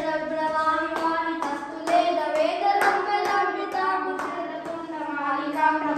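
Telugu devotional folk song to the goddess Jogulamba: long, drawn-out sung notes over a steady beat of sharp strikes, about two a second.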